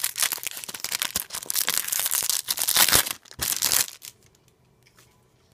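Foil wrapper of an Adrenalyn XL Euro 2016 trading-card pack being torn open and crinkled by hand. It makes a dense crackling rustle that stops about four seconds in.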